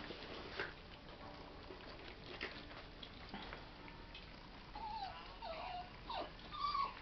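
Cairn terrier whimpering softly: several short, high whines that bend up and down in the last two seconds or so, after a few faint clicks.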